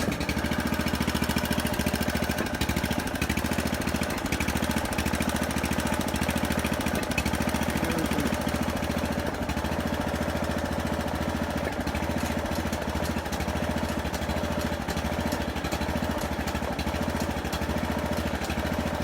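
Small gasoline engine of a hydraulic pier-lifting pump unit running steadily with a fast even pulse, powering the jacks that lift a settled brick step wall on its piers.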